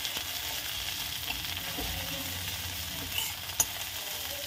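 Chopped raw green tomato, green chillies and peanuts sizzling in oil in an iron kadhai, stirred and tossed with a metal spatula. Two sharp clicks of the spatula on the pan come about three seconds in.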